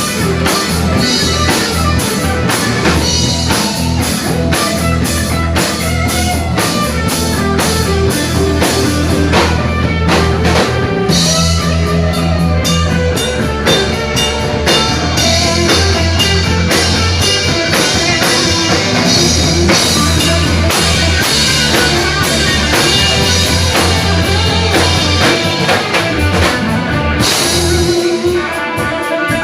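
Live rock band playing an instrumental stretch with no singing: guitar over a drum kit keeping a steady beat.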